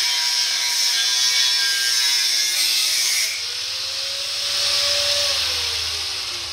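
An angle grinder's cutoff wheel cuts through a steel truck frame rail with a loud grinding hiss. About three seconds in the cut stops and the wheel is lifted free. The unloaded motor's whine rises, then falls steadily as the grinder winds down.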